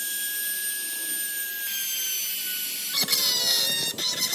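Compact trim router running at high speed as it cuts cypress wood, a steady high whine that sags slightly under load. About three seconds in it gives way to a different high-pitched motor whine with wavering pitch: a small rotary carving tool grinding the wood with a burr bit.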